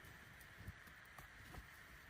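Near silence: a faint steady hiss with three small, faint ticks, in a pause between chopping strokes.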